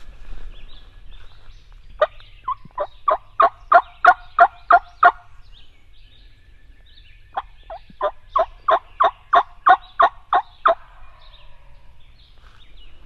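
Turkey yelping: two runs of short, evenly spaced yelps at about three a second, the first starting about two seconds in and the second just past the middle.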